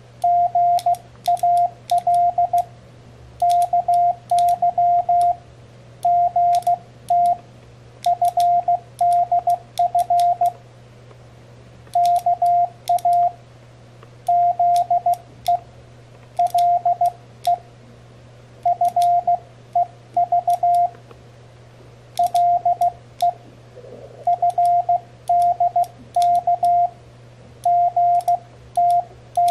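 Morse code sidetone: a single beep tone keyed on and off in dots and dashes, in groups separated by short pauses. It is sent with a homemade CW paddle key built from two microswitches, and sharp clicks from the switches go with the keying.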